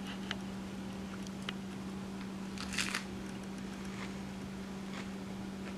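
Small kitchen handling noises over a steady low hum: a few faint clicks and ticks, and a brief crinkle about three seconds in.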